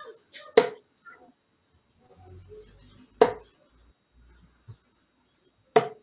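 Three steel-tip darts thudding one by one into a Winmau Blade 6 bristle dartboard, about two and a half seconds apart, each a short sharp hit.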